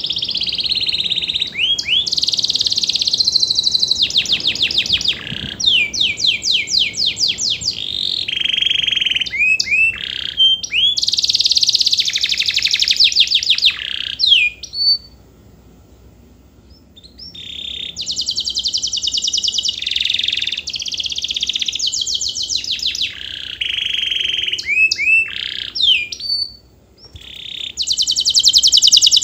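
Domestic canary singing a long, loud song of fast trills and rolls mixed with gliding whistled notes. It breaks off for a couple of seconds about halfway through, then takes up the song again.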